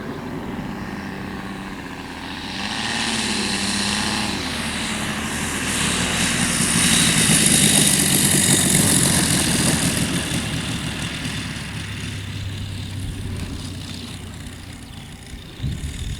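Propeller airplane engine running as the plane flies by, growing louder to a peak about halfway through and then fading away.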